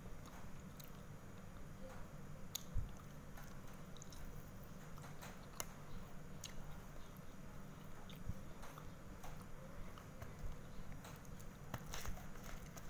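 Faint close-up chewing of a mouthful of satay, with scattered soft clicks and taps as the bamboo skewers are handled, one louder thump about three seconds in.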